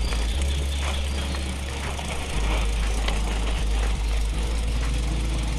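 Mountain bike rolling over a rough dirt-and-gravel trail: tyre crunch with scattered short rattles and clicks from the bike, over a heavy low rumble of wind and vibration on the camera's microphone.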